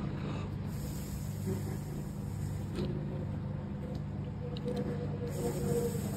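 Steady low background rumble with a faint hum, unchanging.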